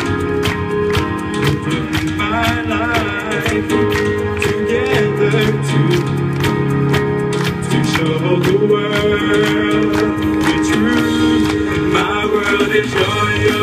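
Electronic keyboard playing a slow love song through PA speakers over a steady beat, with a man's voice singing wavering, wordless runs over held chords.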